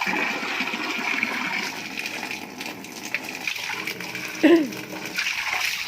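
Water gushing steadily into a shallow muddy pond from a hose. A short vocal sound that bends up and down comes about four and a half seconds in and is the loudest moment.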